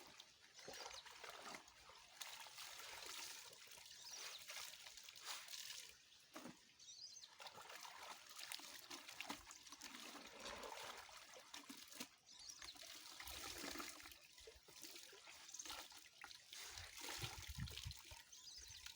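Faint trickling water of a small stream, with uneven splashes and sloshes.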